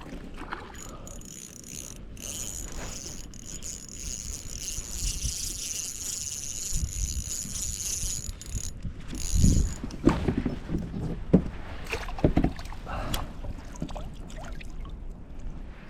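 A fishing reel being cranked steadily as a hooked bass is reeled in, then several sharp knocks and thumps about ten seconds in as the fish is handled in the kayak.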